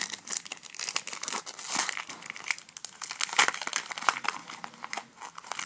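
Foil wrapper of a Pokémon Primal Clash booster pack crinkling and tearing as it is opened by hand: a dense, irregular run of crackles and rustles.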